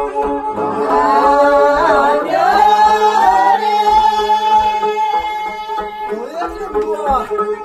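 Tibetan dranyen lutes strummed in a steady, repeating dance tune of a Tingri circle-dance song (gorshey), with singing over them: a long melodic phrase in the first half, and a shorter one near the end.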